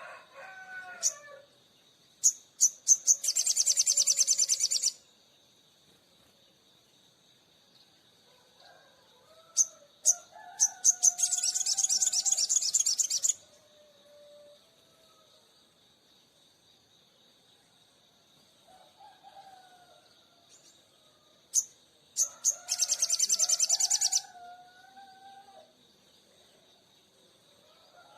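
Sogon songbird singing three loud bouts, each a few sharp, high chips that run into a fast rattling trill lasting about two seconds.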